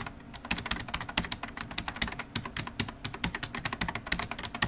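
Computer keyboard typing: a rapid, uneven run of key clicks, several a second.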